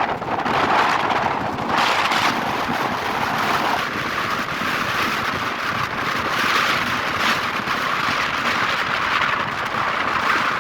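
Wind rushing over the microphone of a moving car, over steady road and engine noise.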